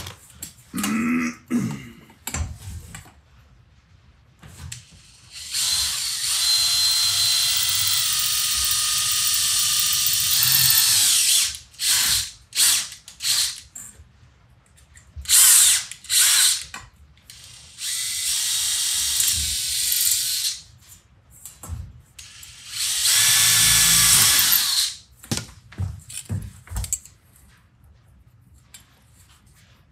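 Cordless drill boring holes through a colander's metal rim for rivets: one run of about six seconds, then several shorter runs and brief pulses, with the motor's steady whine under the cutting noise.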